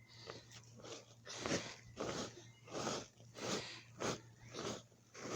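Hands digging and scooping through damp soil in a 5-gallon bucket: a regular series of short rustling scrapes, nearly two a second.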